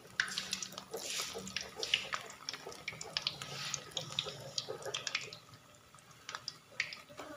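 Lentil-batter dumplings (bhalla) deep-frying in hot oil in a karahi: the oil sizzles with many small crackles and pops, easing off for a while after about five seconds.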